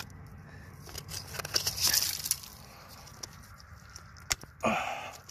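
Fingers scraping and prying at crumbly fossil-bearing rock to work loose a stuck horn coral, loose fragments crackling and grating, with a sharp click about four seconds in and a brief louder rustle near the end.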